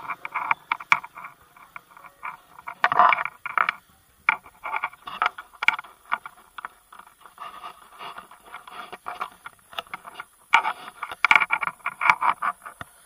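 A bicycle rattling and clattering as it rolls along a paved road, with quick irregular knocks and a few squeaks, over a faint steady high hiss.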